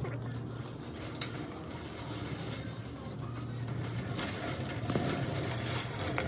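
Wire shopping cart rattling as it is pushed along a hard store floor, its wheels rolling, with a couple of sharp metallic clinks.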